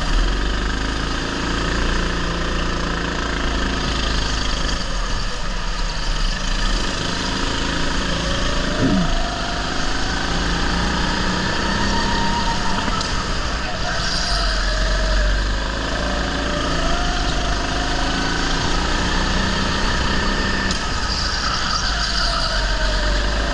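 Rental go-kart driving on an indoor track, heard from on board: a steady motor note whose pitch rises and falls with the throttle through the corners, over a heavy low rumble.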